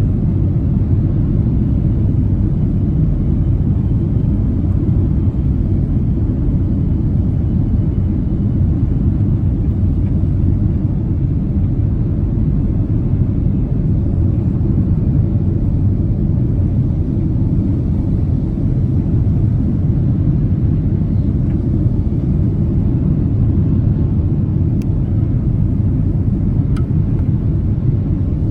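Steady low rumble of a Boeing 767-300ER's engines and airflow heard inside the passenger cabin on landing approach with the flaps extended.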